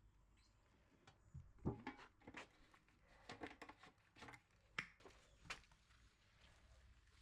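Faint, scattered taps and short rubbing sounds of hand work on a laminate desk cabinet, with near silence between them.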